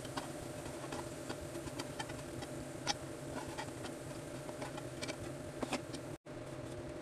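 Faint crackle of hot frying oil in a steel pot, broken by irregular sharp clicks as a perforated steel skimmer lifts fried onions out and touches the pot, over a steady low hum.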